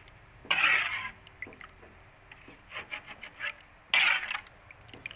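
Metal spatula stirring sauce in a wok, scraping against the pan in two short strokes, about half a second in and about four seconds in, with faint light clicks between.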